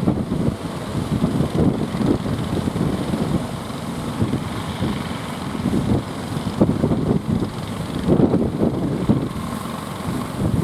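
Boat engine running under heavy wind buffeting on the microphone, the low rumble swelling and dipping unevenly.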